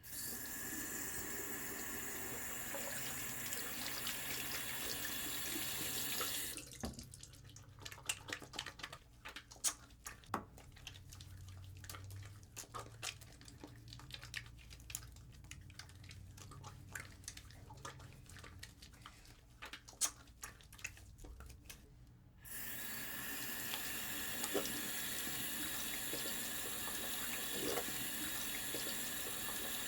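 Hand washing at a sink. A tap runs steadily for about six seconds and then shuts off. Then come a long stretch of many small wet squelches and slaps from soapy hands being rubbed together. About two-thirds of the way through, the tap comes back on and runs steadily.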